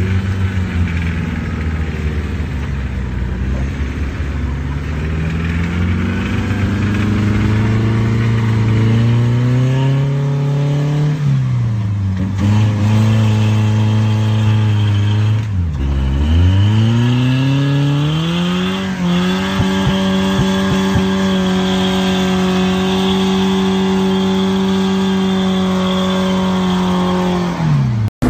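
Rock crawler's engine revving hard under load on a steep sandy climb, the revs rising and falling again and again. About halfway through the revs drop sharply, then climb and hold high and steady for several seconds before falling off near the end.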